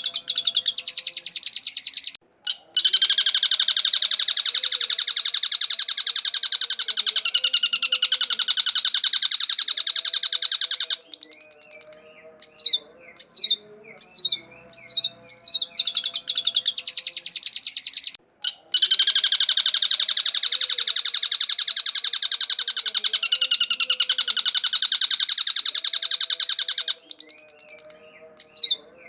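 Long-tailed shrike singing a fast, continuous, chattering song, with short breaks between long runs. The same stretch of song repeats about every sixteen seconds, as in a looped lure recording.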